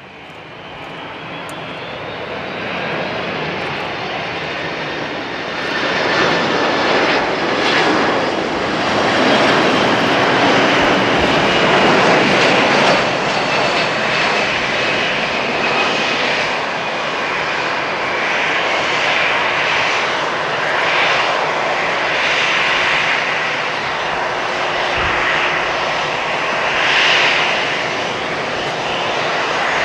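Jet engines of a landing Boeing 767-300ER airliner. The rush grows louder over the first few seconds, then holds loud and steady with a high whine.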